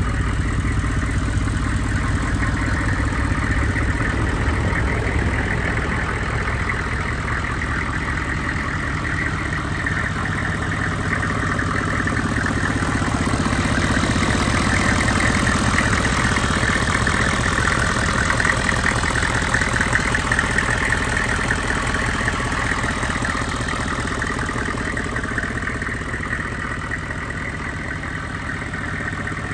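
1999 GMC Sierra dually's 6.5-litre turbo-diesel V8 idling steadily with a diesel clatter, louder for several seconds in the middle with the hood open close to the engine.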